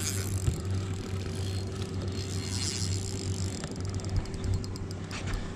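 Steady low hum of a boat's motor running, with a run of quick, faint, evenly spaced ticks in the last second or so.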